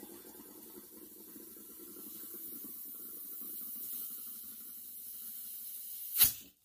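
Compressed air from a shop compressor hissing and gurgling as it fills a refillable aerosol can of penetrating oil through its Schrader valve, pressurizing it to about 90 PSI. About six seconds in there is a short, loud blast of air as the air fitting comes off the can's valve.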